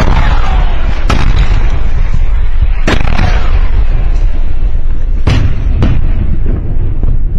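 Aerial bombs exploding in an airstrike: about five sharp, loud blasts spaced a second or two apart over a continuous heavy rumble.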